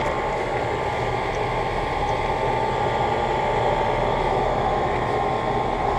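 2008 Comfortmaker 2-ton central air conditioner condensing unit running steadily: the hum of its Copeland scroll compressor under the rush of the condenser fan.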